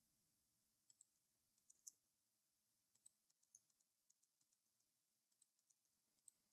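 Near silence, broken by a handful of faint, scattered clicks from a computer mouse and keyboard; the loudest comes about two seconds in.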